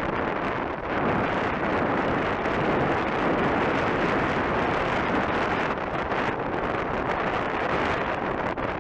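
Wind buffeting the built-in microphone of a compact camera mounted on a moving bicycle, a steady rushing noise.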